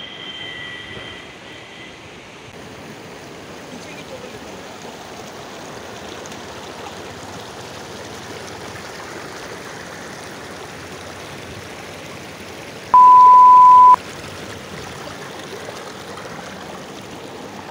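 Shallow, fast mountain river rushing over rocks and boulders in a steady rush of water. About three-quarters of the way through, a loud steady beep sounds for about a second.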